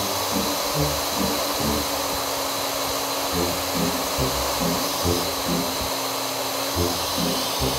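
Router running at high speed, its bit cutting into cured resin: a steady, loud whine that holds evenly throughout, over a steady low hum.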